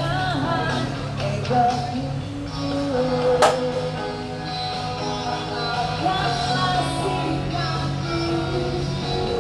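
Background rock song with a singing voice, and a single sharp click about three and a half seconds in.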